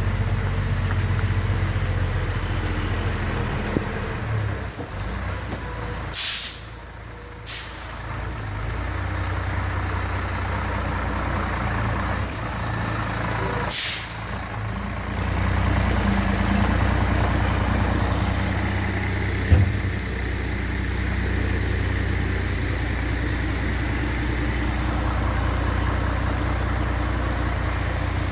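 Heavy truck's diesel engine running steadily, with short sharp hisses of air-brake air released about 6 seconds in and again near 14 seconds; the engine drops quieter for a second or two after the first hiss.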